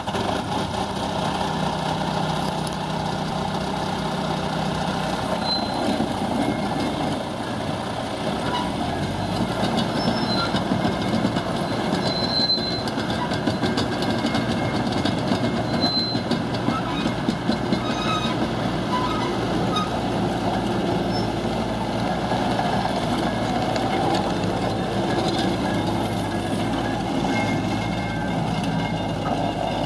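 Ditch Witch XT1600 compact crawler loader running and driving on its rubber tracks, with rattling from the tracks and attachments and a few brief squeaks. Its engine note deepens about nine seconds in.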